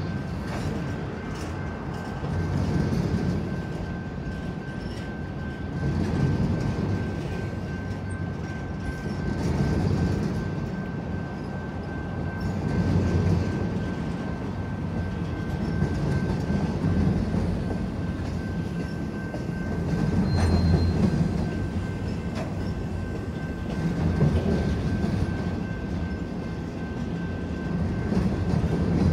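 Freight train's intermodal well cars rolling past: a steady rumble and rattle of wheels on rail, swelling every three to four seconds as each car goes by, with a thin steady high tone throughout.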